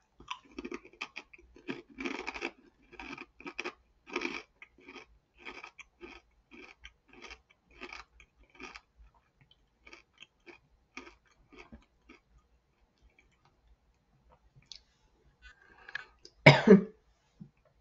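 Chewing a thick, crunchy squid and pickled ginger tempura chip: short crisp crunches at about two a second that thin out and stop after about eleven seconds. Near the end, a single loud cough.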